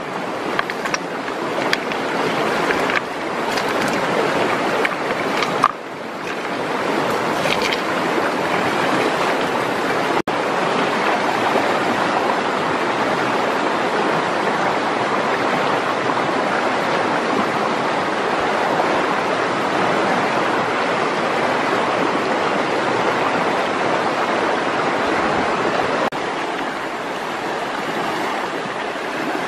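Shallow river rushing over rocks, a steady wash of water noise. A few sharp knocks in the first several seconds as stones are turned over at the water's edge.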